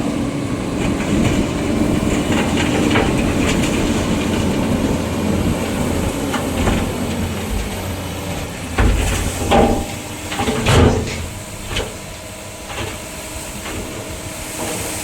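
Excavator and dumper truck engines running with a steady drone. Several heavy clunks come about nine to eleven seconds in as soil is loaded into the dumper's bed.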